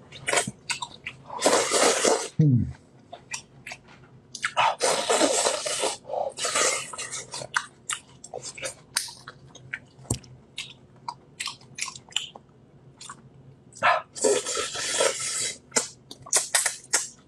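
Close-miked eating of braised monkfish head by hand: wet chewing and lip-smacking clicks, with several louder slurps about a second long as the meat is sucked off the bones.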